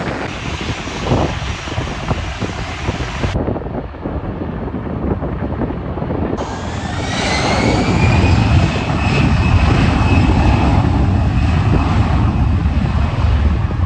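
Wind on the microphone, then an airliner's engines: a whine rises in pitch about halfway through and holds steady while the deep engine rumble grows loud.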